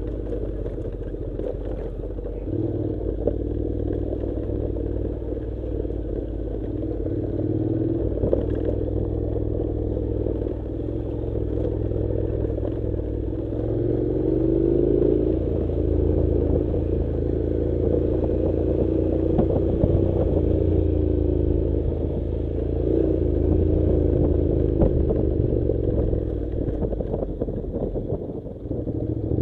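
Honda NC700 parallel-twin engine running while the motorcycle rides over a gravel dirt track. The engine note rises and falls with the throttle, with scattered clatter and knocks from stones and the bike's suspension.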